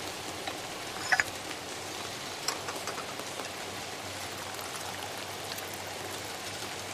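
Recorded café ambience mix from the I Miss My Cafe website: a steady rain hiss with a few short clinks of cups scattered through it.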